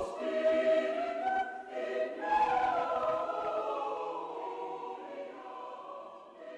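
Choir singing slow, held notes, gradually fading toward the end.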